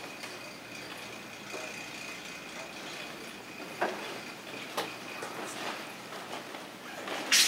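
Twin hook swords and footwork in a kung fu form: a few sharp clicks or knocks in the middle, then a loud burst near the end, over room noise with a faint steady high tone.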